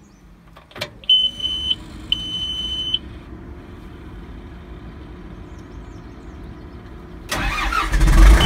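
John Deere 450J bulldozer being started with its ignition key: a click, two short high beeps from the dash warning buzzer while the warning lamps light up, a faint steady hum, then the diesel engine cranks and catches near the end, starting easily and settling into a steady run.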